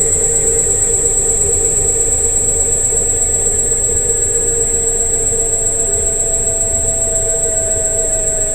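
Electric scooter riding: a steady high-pitched electric whine over a low rolling rumble, with a motor tone that slowly rises in pitch in the second half as it gathers speed.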